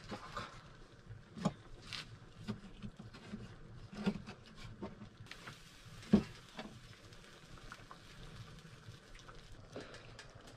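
Light, irregular knocks and clicks of a knife and small items handled on a cutting board on a wooden table, with a sharper knock about six seconds in.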